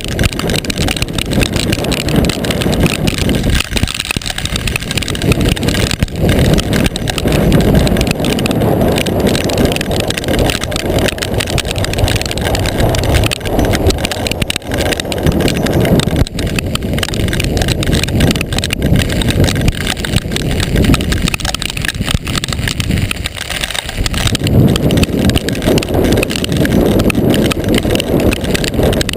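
Strong gusty wind buffeting the microphone: a loud, deep rumble with a hiss over it, swelling and easing with the gusts and dropping in brief lulls.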